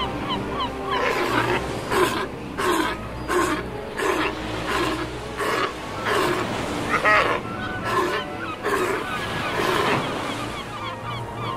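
South American sea lion colony calling: a run of loud barking calls, roughly one a second starting about a second in, over a steady chorus of many higher calls from the other animals.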